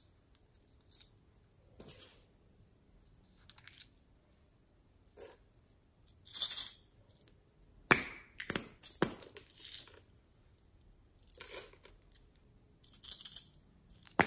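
Hands handling small plastic toys and prying open a little plastic case: irregular plastic clicks, rattles and rustles, with a couple of sharp snaps a little past the middle.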